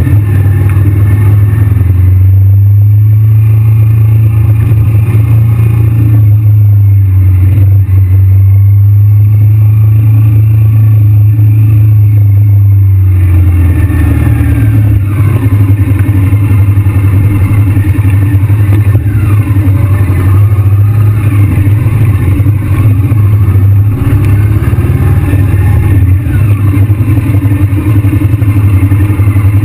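Honda VTR V-twin motorcycle engine running at low revs while cruising slowly in town, a steady low drone that turns uneven and pulsing about halfway through as the throttle is worked.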